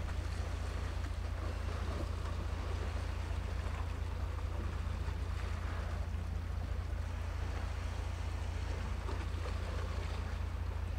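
Steady seaside ambience: a constant low rumble of wind on the microphone over an even wash of sea noise.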